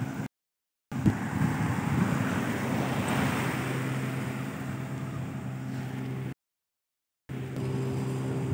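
Wind buffeting the microphone over surf-like noise, with a steady low engine hum underneath. The sound cuts out to total silence twice.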